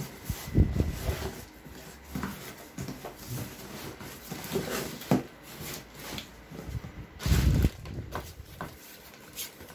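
Cardboard box and packaging being handled: irregular rustling, scraping and knocking, with a dull thump about half a second in and a louder one about seven and a half seconds in.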